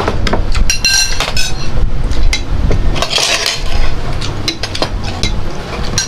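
Eating utensils and dishes clinking and knocking against each other as a meal is served, with a brief ringing clink about a second in.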